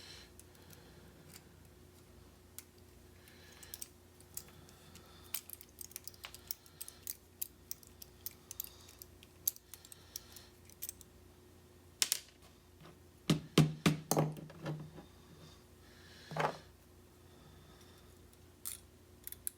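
Light metallic clicks and taps of small lock parts and tools being handled while a pin-tumbler lock is taken apart, with a quick run of louder clacks about two-thirds of the way through.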